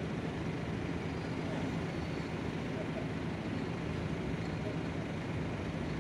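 Steady low mechanical hum over an even background of outdoor noise.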